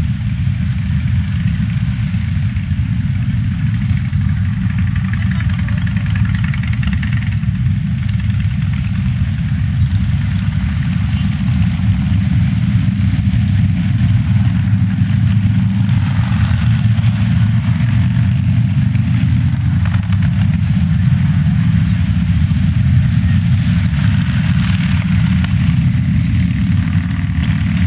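Steady low rumble of a moving vehicle: engine and road noise.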